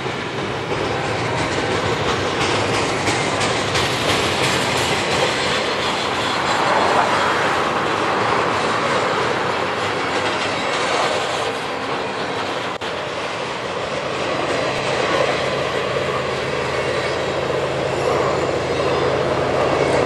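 Double-stack container train's well cars rolling past close by, a steady rolling noise of steel wheels on the rails.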